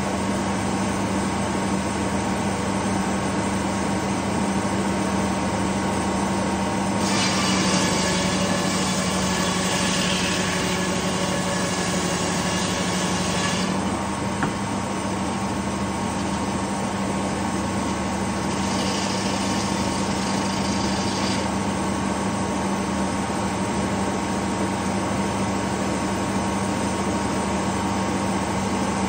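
Detroit Diesel two-stroke engine running steadily, driving a large circular sawmill blade. About seven seconds in, the blade cuts through a pine log with a high-pitched sawing sound for about seven seconds, then spins free. A shorter, fainter high hiss comes about nineteen seconds in, and another cut begins at the very end.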